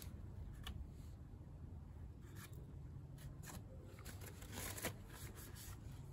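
Faint rustling of rubber-gloved hands handling a cloth rag, with a few light clicks and one louder rustle late on, over a steady low background rumble.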